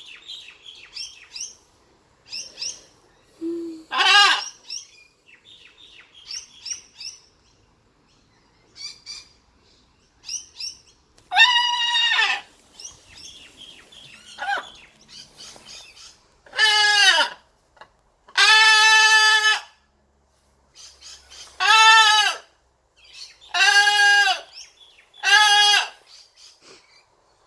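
Blue-and-gold macaw calling: soft, high chirps and chatter in the first half, then a series of about seven loud, harsh squawks, each under a second to a second and a half long, separated by short pauses.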